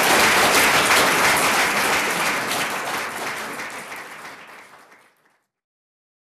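Audience applauding at the end of a talk. The clapping fades away and stops about five seconds in.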